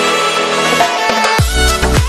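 Background music: held chords, then about two-thirds of the way in a deep kick drum and bass come in with a steady beat.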